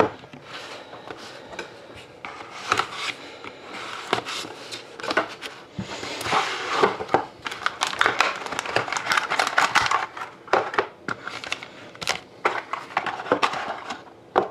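Hands opening a cardboard trading-card box: irregular scrapes, clicks and paper rustling, densest from about six to ten seconds in. Near the end the foil-wrapped card pack inside is handled.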